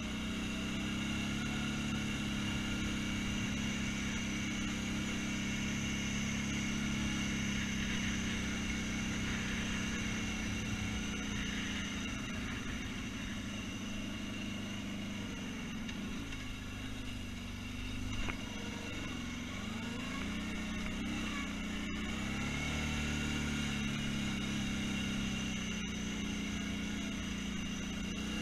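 ATV engine running steadily under the rider's driving over a rough grass trail. A little past halfway the engine note drops and climbs again, and there is a brief knock around then.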